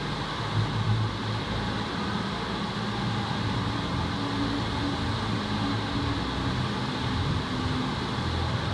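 Steady rush of water from an indoor sheet-wave surf simulator, a thin sheet of water pumped up its padded slope, with a low, even hum underneath.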